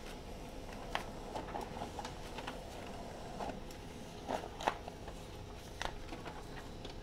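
HP LaserJet M203dn laser printer running a test print and feeding pages out, a steady low running sound with a few sharp clicks as the paper moves. It runs without the loud noise it made before, the broken old toner cartridge having been replaced with a new one.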